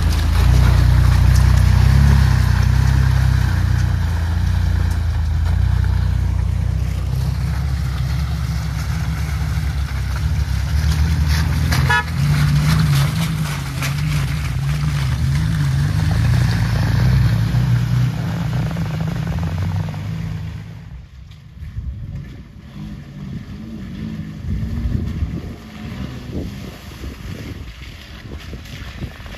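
Off-road vehicle engines running under load as Willys trucks crawl along a muddy trail, with a brief horn toot partway through. About two-thirds of the way in the sound drops abruptly to a quieter engine as a Suzuki Jimny churns slowly through the mud.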